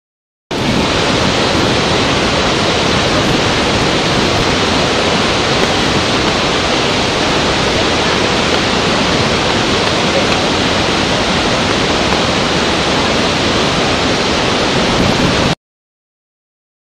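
Steady rush of a large waterfall: an even, unchanging wash of falling water. It starts abruptly about half a second in and cuts off abruptly about a second before the end.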